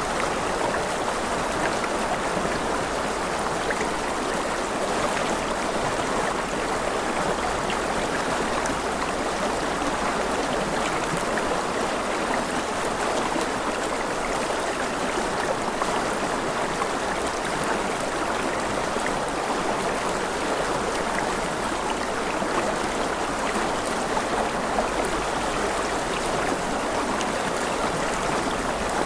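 Water flowing steadily in a stream, an even rushing with a fine patter of small splashes.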